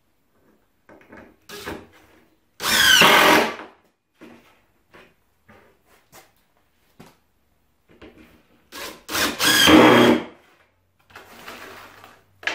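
Cordless drill driving 1-inch screws through a plywood block into a plywood bulkhead, in two short runs about 3 s and 9 s in. Light knocks and handling clicks fall between them.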